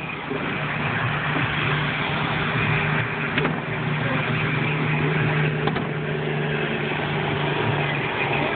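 A vehicle engine running with a steady low hum under constant broad noise. Two short sharp cracks come about three and a half and nearly six seconds in.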